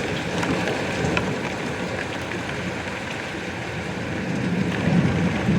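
Steady rain falling, with scattered individual drops tapping. A low rumble under it swells briefly near the end.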